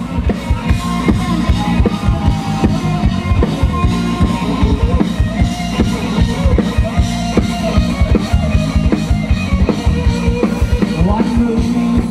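Live rock band playing: an electric guitar with gliding, bending notes over fast, steady drum-kit beats.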